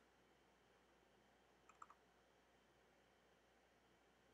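Near silence, with one faint, quick cluster of clicks from a computer mouse or trackpad a little under two seconds in.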